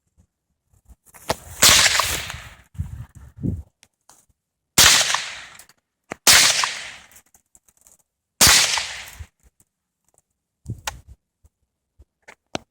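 AR-15 rifle firing four single, semi-automatic shots spaced a couple of seconds apart, each sharp crack trailing off in a short echo.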